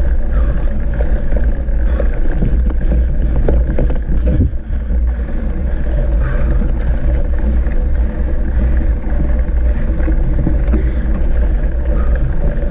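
Wind buffeting on a mountain bike's action camera and the rattle of the bike riding over rough gravel and concrete track: a loud, steady low rumble with a few scattered knocks.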